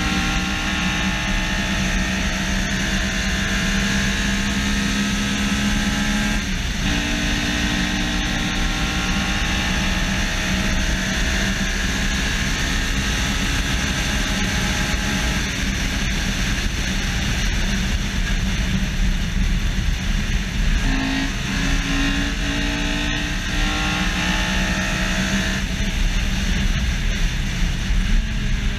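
Honda S2000's F20C four-cylinder VTEC engine under hard acceleration, its pitch climbing through the revs with a gear change about six and a half seconds in, then pulling on through further gears. A heavy rush of wind and road noise runs underneath.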